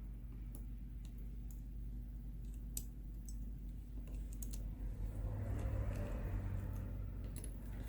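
Sparse, faint small clicks and taps of tweezers and a small phone part being handled and fitted into place, over a steady low hum.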